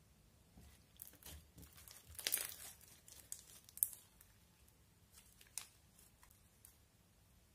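Translucent blue glitter slime being squeezed and kneaded by hand: irregular sticky crackles and small pops. They are loudest about two to four seconds in and thin out after about six seconds.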